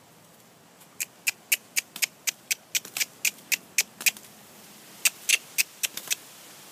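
Handler clicking her tongue to drive a horse on in the round pen: a quick even run of sharp clicks about four a second for about three seconds, then after a short pause a second, shorter run.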